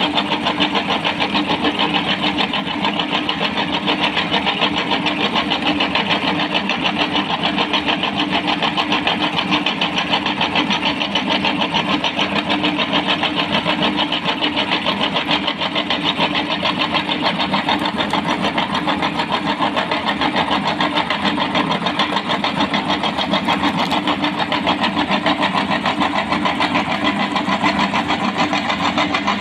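Electric meat grinder motor running steadily, with a fast, even churning texture and no change in pitch or level.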